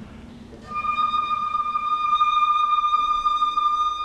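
After a moment of quiet, a flute comes in about two-thirds of a second in and holds one long, steady high note.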